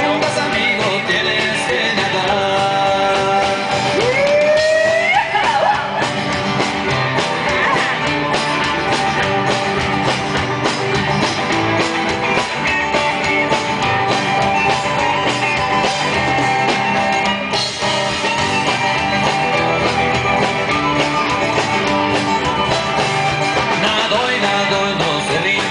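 A band playing a rock-style song with guitar and a singer, at a sound check. A sliding rise in pitch stands out about four to five seconds in.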